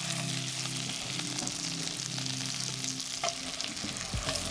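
Diced vegetables sizzling in a hot pot as liquid is poured over them, while a wooden spatula stirs through them.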